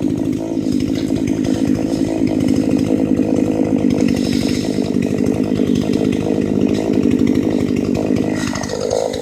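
Chainsaw running steadily at speed while cutting into a tree, easing off slightly near the end.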